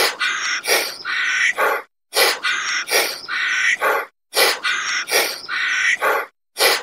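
A bird-like chirping call: a phrase of five or so short, sharp notes, repeated almost identically three times about every two seconds, like a looped recording.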